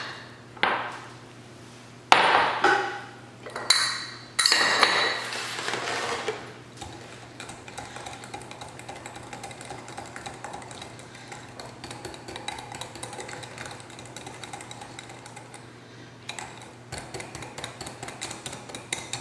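Dishes clinking sharply four or five times as bowls are moved and set down, then a wire whisk beating batter in a glass measuring jug: a fast, even run of small taps and scrapes against the glass.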